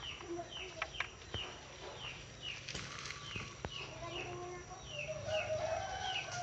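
A bird calling repeatedly: short downward-sliding chirps, about two a second, with a few sharp clicks among them.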